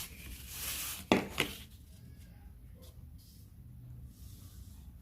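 Cardboard being worked by hand: a scraping rustle, then two sharp knocks about a second in, followed by faint handling noise.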